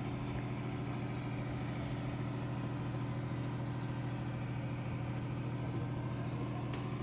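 An engine running steadily at constant speed: a low, even hum that does not change in pitch.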